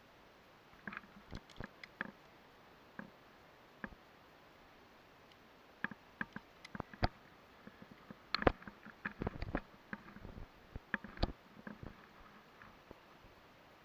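Irregular clicks and knocks of a via ferrata climber's metal gear against the steel safety cable and iron rungs, with hands and feet scuffing the rock, over a faint steady hiss. The clicks come in a busier cluster about eight to ten seconds in.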